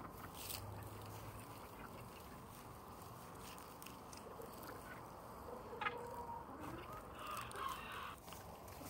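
Backyard chickens clucking quietly as they peck at food, with a louder call near the end.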